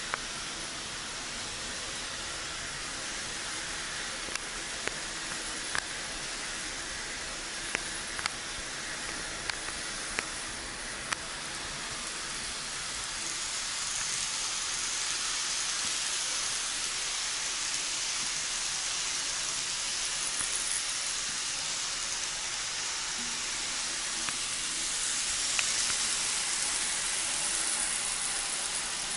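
Tomix N-scale 583 series model train running on its track, a steady hissing whir of the motor and wheels. It grows louder from about halfway through and again near the end as the train passes close. There are a few sharp clicks in the first ten seconds or so.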